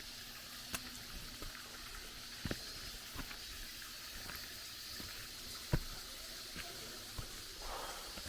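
Steady hiss of running water, with scattered sharp clicks and knocks at irregular intervals.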